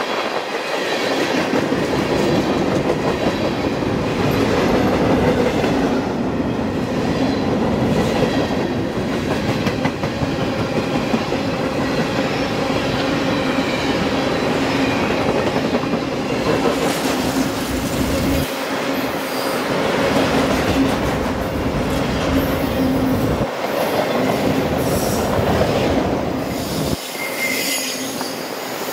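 A train rolling past on steel rails, a continuous rumble of wheels on track with a steady squeal running through it. The low rumble cuts out abruptly a few times in the last third.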